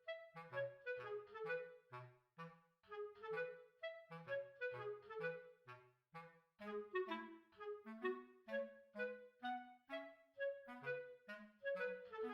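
Background music: a bouncy melody of short, separate notes over a bass line.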